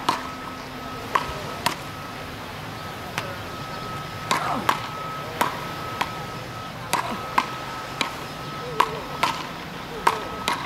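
Wooden beach-racket paddles hitting a small ball back and forth in a rally: a string of sharp, hollow cracks, mostly half a second to a second apart, sometimes two in quick succession.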